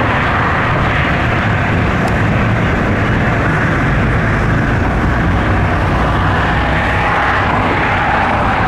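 Motorboat running steadily under way: a constant low engine drone with a dense rushing noise over it.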